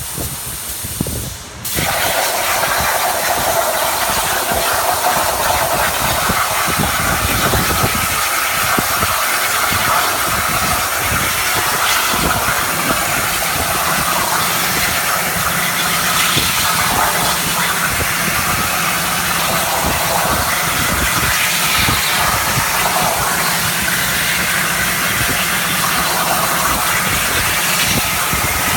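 CNC plasma cutting torch arc switching on suddenly about two seconds in, then hissing loudly and steadily as it cuts.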